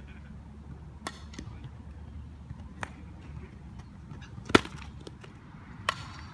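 A softball bat striking a ball: one loud sharp crack about four and a half seconds in, with a few fainter knocks before and after it.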